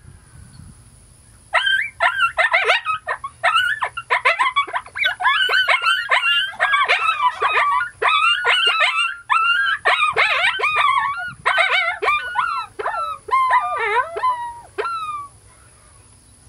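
Coyote pup distress blown on a hand-held mouth-blown coyote howler call: a fast, dense run of high yelps and whimpering cries that starts about a second and a half in, thins out into a few spaced yelps and stops shortly before the end.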